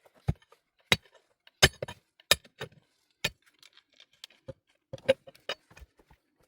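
Hard objects knocking and clacking together in irregular single strikes, about a dozen sharp knocks spread over several seconds.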